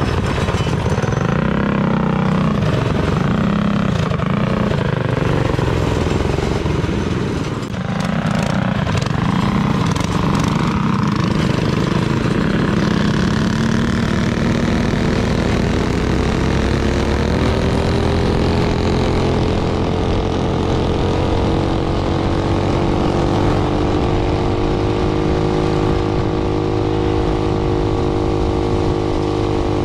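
Minibike's small engine running under way, its pitch rising and falling with the throttle, then climbing smoothly about halfway through and holding a steady higher speed. Wind buffets the microphone.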